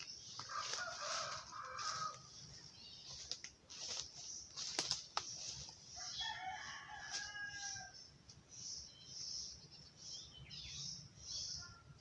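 A rooster crowing twice, once about half a second in and again about six seconds in, each crow lasting a second or two. Behind it runs a high chirping that pulses about twice a second, with a few sharp clicks around five seconds in.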